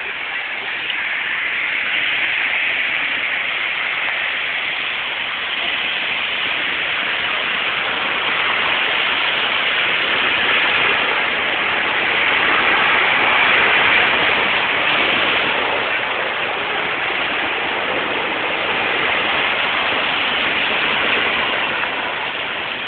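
Cars driving through a flooded street, their tyres throwing up sheets of water: a steady rushing spray that rises and falls in a few long swells.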